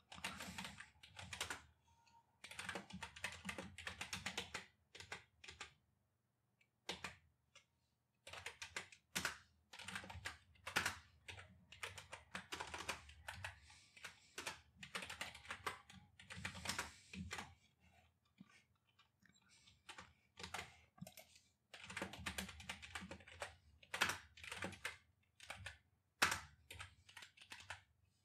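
Computer keyboard being typed on in quick runs of keystrokes, with short pauses between the runs.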